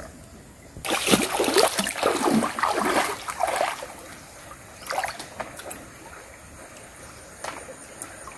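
Water splashing and sloshing for about three seconds, then a few brief, fainter splashes.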